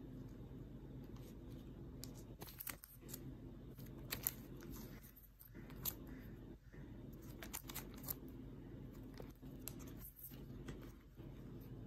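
Banknotes and their clear plastic sleeves rustling and crinkling as they are handled and leafed through, with scattered sharp crackles.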